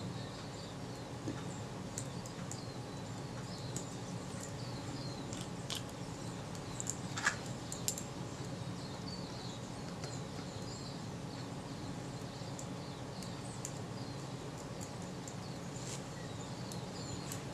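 Faint birdsong chirping steadily over a low room hum, broken by a few small sharp clicks of tweezers on the lens's metal parts, the loudest two close together about seven seconds in.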